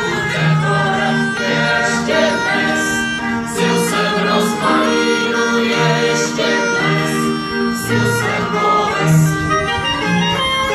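Live Czech folk dance music: fiddles and a double bass playing a steady dance tune, with a group of voices singing along.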